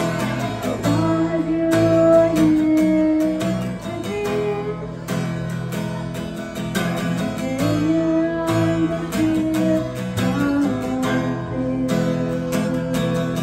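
Acoustic guitar strummed steadily as chord accompaniment to a love song, with a woman singing along into a handheld microphone in parts.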